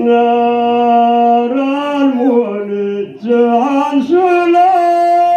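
A man singing a slow chant line in long held notes, with sliding ornaments as the pitch moves from one note to the next.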